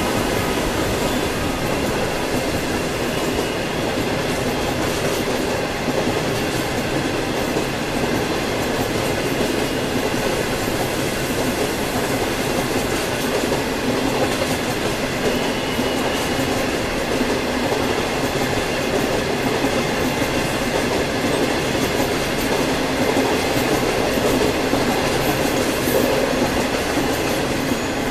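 Passenger train of 25T coaches passing: steady rolling noise of steel wheels on the rails, without let-up.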